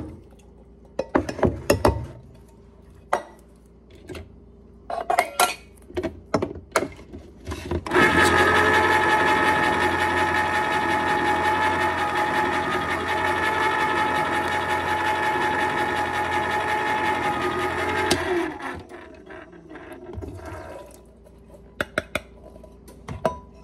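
Small electric can-opener motor running steadily for about ten seconds, cutting open a can of corn, with a steady hum that starts and stops abruptly. Metal cans knock and clink before and after.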